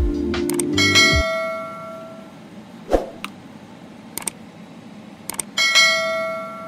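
Background music stops about a second in. What follows is a subscribe-button animation sound effect: a bright bell-like notification ding that rings out, a few short mouse clicks, then a second ding near the end.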